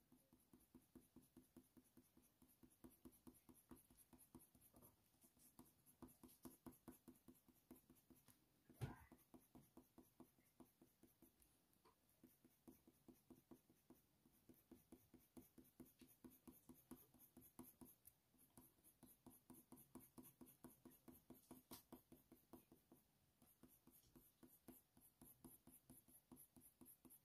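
Faint scratching of a Faber-Castell Polychromos coloured pencil on hot-press watercolour paper in short, repeated strokes, with one louder click about nine seconds in.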